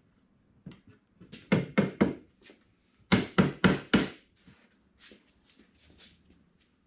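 Wooden knocks and thunks as a slatted wooden side frame is pushed down by hand onto the long domino tenons of the coffee table's aprons, seating the glued joints. A few knocks come about a second and a half in, then a quick run of about five near the middle, then fainter taps.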